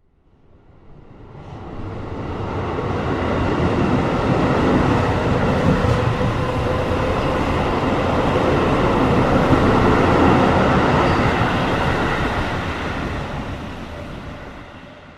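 Train passing by: a rumbling rail noise that swells over the first few seconds, holds steady, then fades away near the end.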